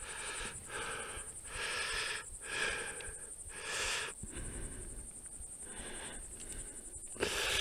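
A hiker breathing hard while walking, a noisy breath roughly every second.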